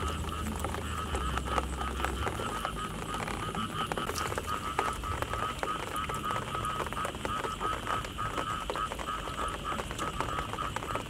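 Frogs calling steadily in a night chorus, a pulsing trill that runs on throughout, with scattered small ticks and splashes from the wet ground and puddles.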